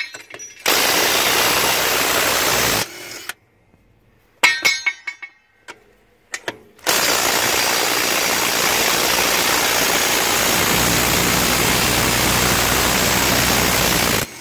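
Makita 18-volt cordless impact wrench hammering on a large wheel nut to loosen it. It runs in a burst of about two seconds, then there are a few metallic clinks, then a second long burst of about seven seconds.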